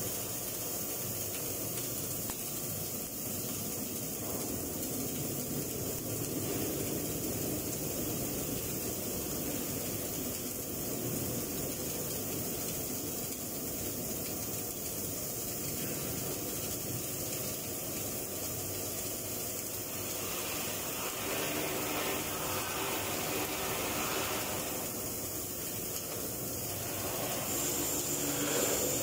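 Electric arc welding an overhead steel butt joint, the arc burning as a steady noisy hiss without a break.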